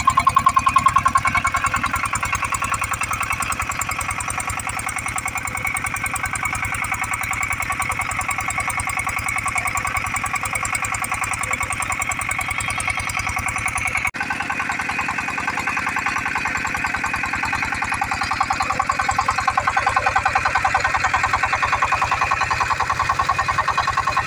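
Single-cylinder horizontal diesel engine running steadily with an even, rapid firing beat while it belt-drives a centrifugal water pump. The sound drops out for an instant about halfway through.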